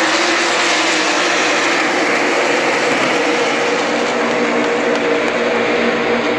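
The field of NASCAR Cup Series stock cars racing past in a tight pack at full throttle: a loud, steady roar of many V8 engines, their engine notes shifting against each other.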